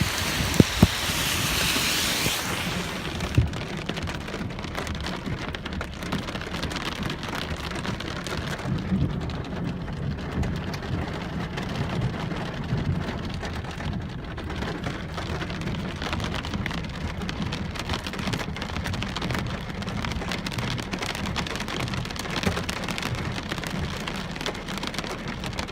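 Heavy rain falling steadily, a hiss that is loudest for the first couple of seconds and then settles, with a few sharp drop ticks near the start.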